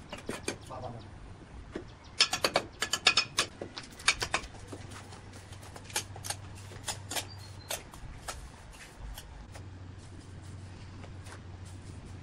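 Red clay bricks clinking and knocking against each other as they are picked from a stack and set in a row: a quick cluster of sharp clacks a couple of seconds in, then scattered single clacks.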